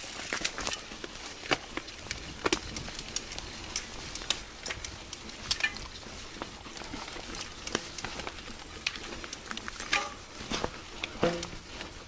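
Mountain bike rattling and clattering over a rough dirt trail: irregular sharp knocks from the bike over roots and rocks, over a steady rush of tyres on dirt.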